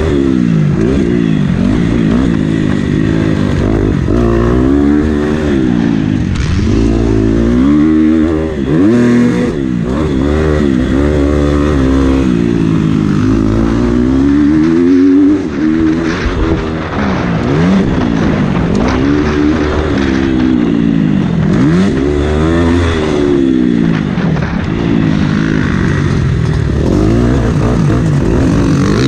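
Motocross bike engine heard from on the bike, revving hard and easing off again and again as the rider rides the dirt track, its pitch climbing and falling every second or two, with a couple of brief dips where the throttle is shut.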